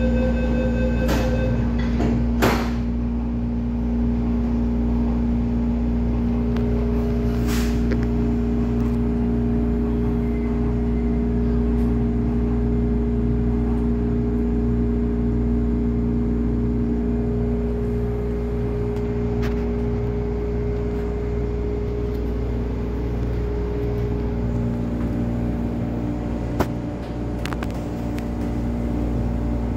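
Refurbished MTR East Rail Line electric train running: a steady low rumble with a constant hum, a second higher hum joining for the middle stretch, and a few sharp clicks, the loudest about two and a half seconds in.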